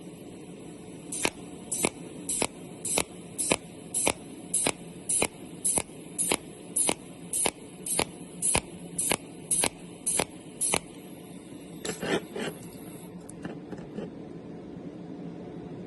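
Cold welding machine firing pulses onto mold steel: a sharp snap with each pulse, evenly spaced just under two a second, over a steady hum. The regular pulsing stops about eleven seconds in, followed by a short run of weaker crackles before only the hum remains.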